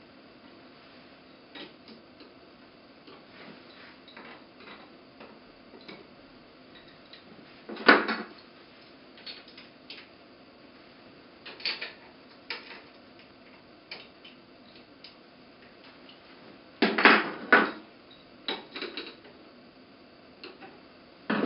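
Metal clicks and clinks of a hand tool working the screws of a small hydro turbine's metal housing as they are checked for tightness: scattered light ticks, a louder clank about a third of the way through and a quick run of clanks near the end.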